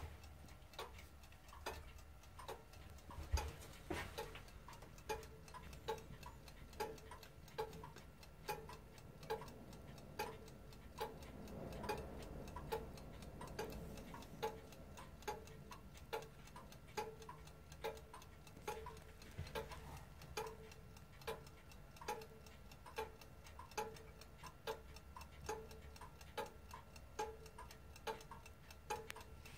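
Reproduction Morbier Comtoise clock movement ticking steadily and faintly, a little faster than one tick a second, alternating a lower and a higher click.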